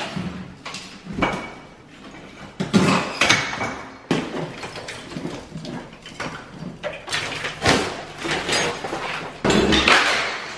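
Wall tiles being pried and pulled off a kitchen wall, cracking loose and clattering down onto the counter and broken debris below: an uneven run of cracks, knocks and crashes.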